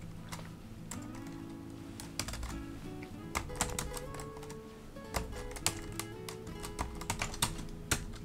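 Computer keyboard typing, an uneven run of key clicks as a short instruction is entered, over quiet background music with held notes that change a few times.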